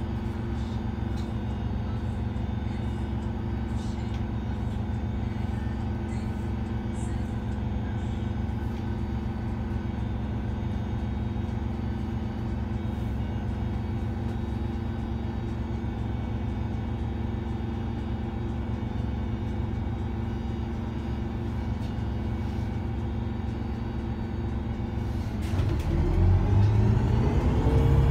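Interior of an Iveco Urbanway 12 GNV compressed-natural-gas city bus, its engine humming steadily at idle. About 25 seconds in it pulls away, and the engine note gets louder and rises as it accelerates.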